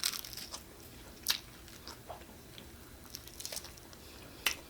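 A person chewing and biting pizza close to the microphone: scattered short wet mouth clicks and crunches, the sharpest about a second in and near the end.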